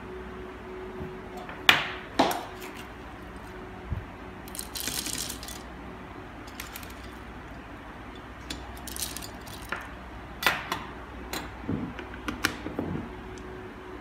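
Coffee beans and a stainless-steel manual coffee grinder handled by hand: sharp metal and glass clicks and clatters, with short rattles as beans are scooped and tipped into the grinder's hopper. A cluster of small clicks comes near the end. A faint steady hum runs underneath.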